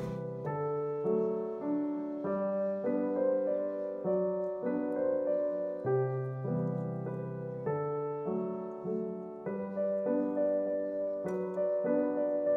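Background piano music, a melody of notes changing about twice a second over held chords.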